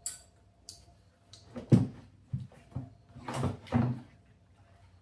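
Irregular knocks and clatters of parts and tools being handled, about eight in a row. The loudest is a thump about two seconds in, and a few more come close together near the end.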